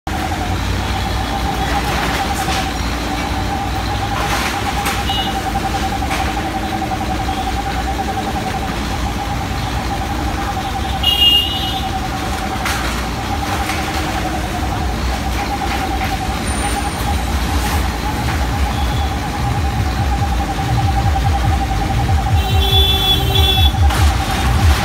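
Backhoe loader's diesel engine running under load with a steady high whine, its rumble growing heavier and pulsing in the last few seconds as the bucket works. Scattered crashes and scrapes of sheet metal and debris come from the stall being pulled down.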